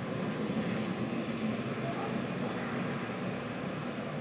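Steady background hiss with a faint low hum: room noise, with no distinct events.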